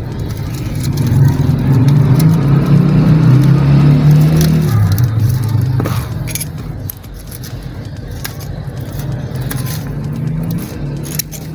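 A low, droning engine hum, loudest in the first half, that drops in pitch and level about five seconds in. Light clicks and rustles come from wire mesh and plastic cord being handled.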